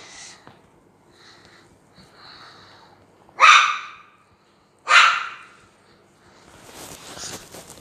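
A dog barking twice, about a second and a half apart, each bark short and loud.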